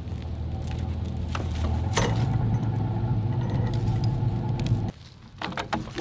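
Pickup truck engine running steadily, revving up about two seconds in as it takes up the pull on a tow rope, then stopping abruptly about five seconds in.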